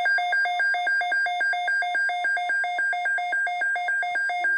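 Emergency alert attention tone for a tornado watch: a loud electronic beeping that alternates rapidly between a low and a high pitch, about seven times a second.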